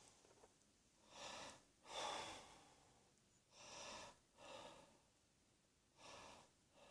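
A person breathing faintly and audibly, about five breaths in and out, some coming in quick pairs.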